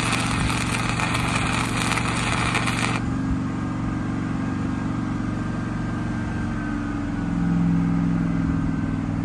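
Stick-welding arc crackling and sputtering as a rod is burned to fill pits in steel, breaking off suddenly about three seconds in. A steady engine hum runs underneath and grows a little louder near the end.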